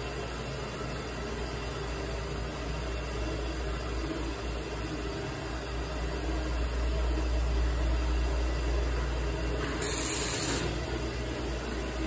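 Electric hand dryer blowing air in a steady whoosh with a low rumble, getting louder about six seconds in as a hand is held under it, with a brief sharper hiss near the end.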